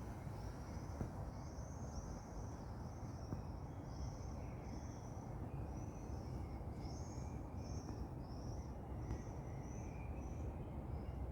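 A small bird calling over and over in short high chirps, about two a second, with fainter lower notes mixed in. The chirps stop near the end. Under them is a steady low outdoor rumble.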